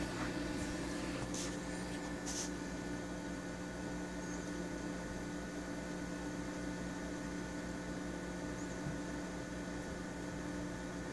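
Steady hum of a running reef aquarium's equipment, several fixed tones over a low pulsing rumble, with two brief faint hisses about one and a half and two and a half seconds in.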